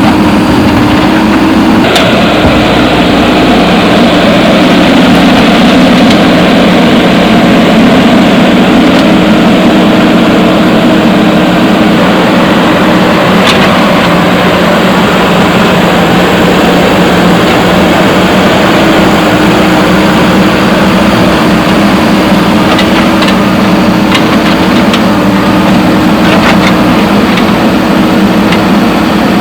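JCB backhoe loader's diesel engine running steadily, with a few sharp knocks over it.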